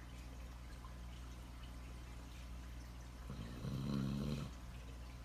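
A sleeping puppy snoring: one low, rough snore about three seconds in, lasting about a second.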